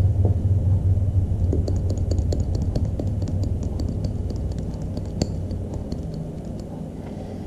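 Spice jar of cayenne pepper being shaken over fish fillets on a plate: a run of light, rapid ticks. A steady low hum sits underneath and slowly fades.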